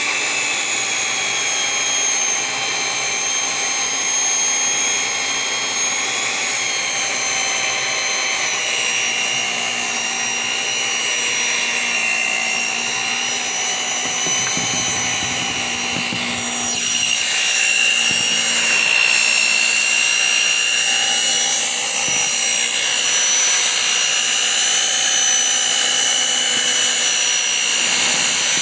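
Electric mixer beating batter, its motor whining steadily, the pitch shifting slightly about a third of the way in and again a little past halfway, when it gets a bit louder.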